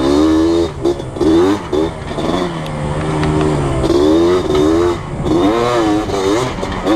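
Yamaha Blaster ATV's two-stroke single-cylinder engine revving up and down over and over as the throttle is opened and eased off while riding.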